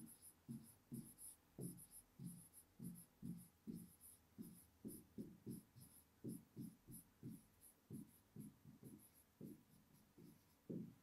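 Faint pen strokes on a writing board as a sentence is handwritten, a run of short scratches about two a second.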